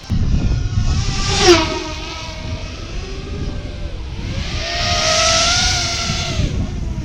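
FPV racing drone's motors whining, the pitch rising and falling with the throttle, over low wind rush. About a second and a half in the drone makes a fast low pass: the loudest moment, with a sharply falling pitch.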